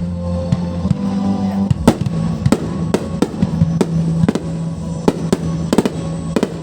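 Fireworks going off: a rapid, irregular series of sharp bangs, over music with sustained notes playing in the background.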